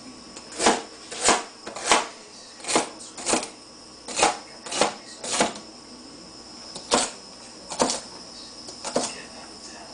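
Chef's knife chopping celery stalks on a plastic cutting board: about a dozen sharp knocks of the blade through the stalk onto the board, roughly one every half second to a second.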